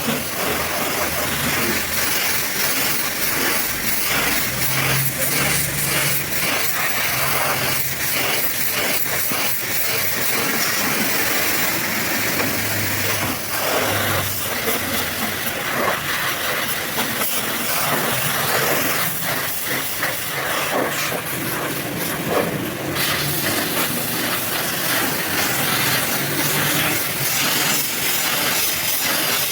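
High-pressure washer jet spraying water onto a muddy truck: a steady hiss with a crackle of spray spattering off the surfaces.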